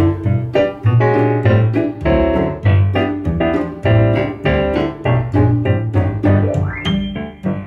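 Background music led by piano or electric piano, notes struck on a steady beat, with a rising sweep about six and a half seconds in.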